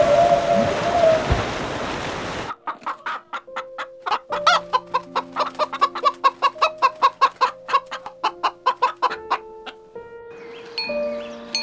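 A crowded flock of brown hens clucking rapidly, several short clucks a second, over light background music. The first two seconds hold a rushing water noise with the end of a whale's call, which stops abruptly at the cut to the hens.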